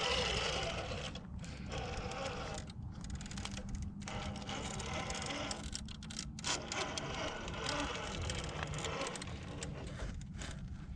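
Traxxas TRX4 Sport RC rock crawler's electric motor and geared drivetrain whirring as it crawls over rock, dropping out briefly several times as the throttle is let off.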